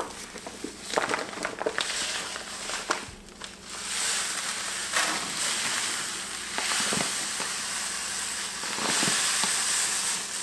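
Fine stock salt pouring from a 50-pound bag into a plastic bucket: the bag rustles and crackles as it is tipped, then from about four seconds in a steady hiss of salt grains running into the bucket.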